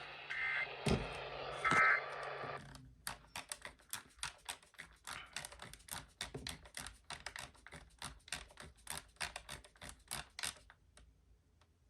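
Radio receiver hiss carrying two short bursts of two-tone digital data, the EAS end-of-message signal, which cuts off after about two and a half seconds. Then there is computer keyboard typing, rapid key clicks for about eight seconds.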